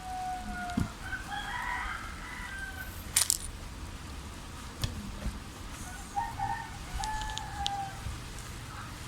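A rooster crowing twice in the background, once at the start and again about six seconds in, with a single sharp click about three seconds in.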